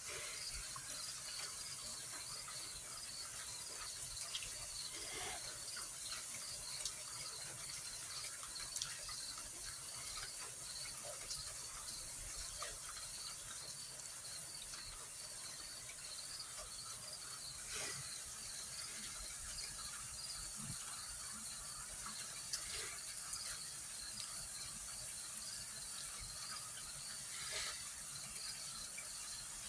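Crickets chirping in a steady, even pulse, with scattered faint ticks of light rain. No thunder is heard.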